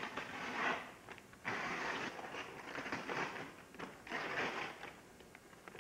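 Packaging and wrapping paper rustling and crinkling in three bursts as a gift box is opened by hand.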